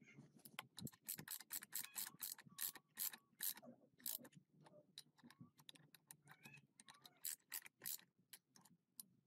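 Socket ratchet wrench clicking in quick runs as the bolts of an engine's cooling fan are tightened onto its hub. The clicks come thickest in the first half and thin out later.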